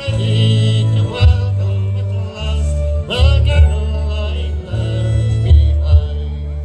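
Live amplified Irish folk ballad: a male lead vocal over strummed acoustic guitars, mandolin and fiddle, with deep bass notes changing every second or so.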